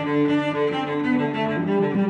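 Background music: bowed string instruments playing a low melody of held notes.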